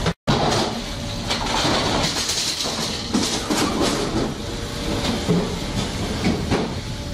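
Fish-processing line machinery running: a conveyor belt and a Pacmate packing machine clattering and rattling over a steady hiss.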